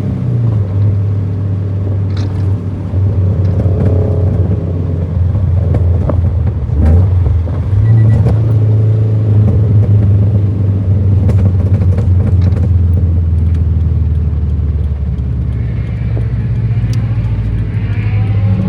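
Scion FR-S's flat-four engine running as the car drives, a steady low drone that steps up in pitch near the start and dips and climbs again about seven seconds in.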